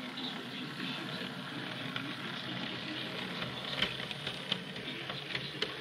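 Model Class 37 diesel locomotive running along the layout's track: a steady motor whirr with crackle and irregular clicks from the wheels on the rails, the sharpest click about four seconds in.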